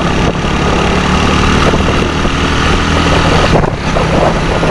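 Win Detech 110 motorcycle's single-cylinder four-stroke engine running hard under load on a speed run, heard from the handlebars with wind and road noise. There is a short dip in the sound about three and a half seconds in.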